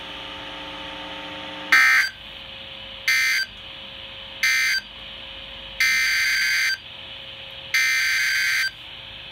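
NOAA Weather Radio digital SAME data bursts through a radio speaker: after a steady low hum of dead air, three short screeching bursts (the end-of-message code closing one warning) and then longer bursts (the SAME header that opens the next warning).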